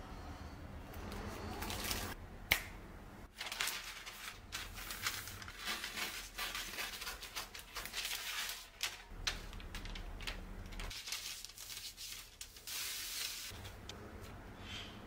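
Parchment paper rustling and crinkling as a sheet is folded, creased and smoothed on a wooden cutting board, with a sharp click about two and a half seconds in.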